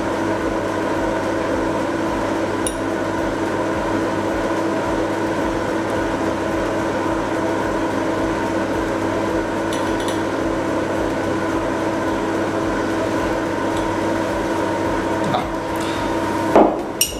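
A steady hum of several fixed tones, with a few faint clinks of metal tweezers against a small porcelain dish and a sharper knock near the end.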